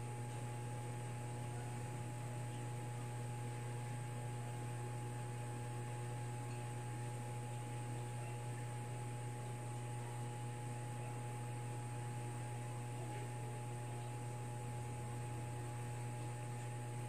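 Steady electrical mains hum, with fainter steady higher tones above it and no other sound.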